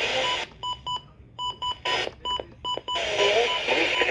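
A run of about ten short electronic beeps from a radio's keypad as it is retuned to another station, with bursts of hiss between the beeps. A station's audio comes in about three seconds in.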